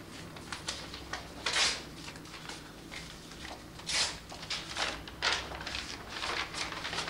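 Pen writing on notebook paper in many short scratching strokes, with a few louder paper rustles, over a faint low hum.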